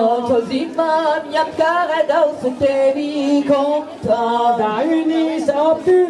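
Two women singing a Breton danse Sizun unaccompanied, a cappella dance song in a steady, repeating tune with held notes.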